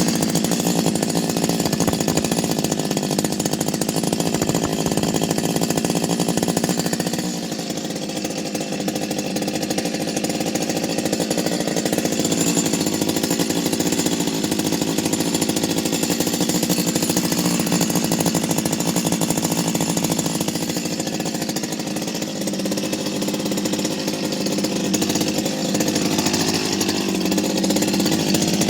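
Freshly rebuilt Stihl 025 two-stroke chainsaw with a modded muffler, running steadily. It eases off slightly about seven seconds in and picks up again near the end.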